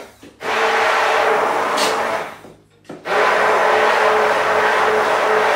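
Electric hand blender running in a metal bowl of cake batter with a steady motor whine, in two runs: on for about two seconds, switched off briefly, then on again until near the end.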